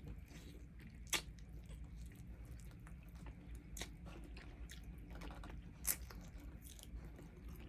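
A person chewing and biting into chicken wing flats close to the microphone, with a few sharp clicks, the loudest about a second in and near six seconds in, over a faint steady hum.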